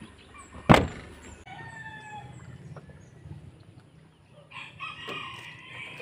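A rooster crowing, one drawn-out call starting about four and a half seconds in, with shorter fowl calls earlier. A sharp knock about a second in is the loudest sound.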